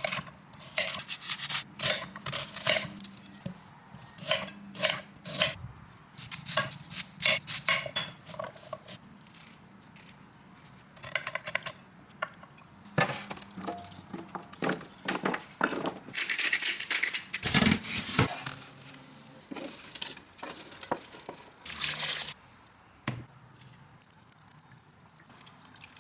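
Kitchen cooking sounds: dishes, pans and utensils clinking and knocking in quick succession, with a louder rushing hiss for a couple of seconds about two-thirds through and a brief high-pitched tone near the end.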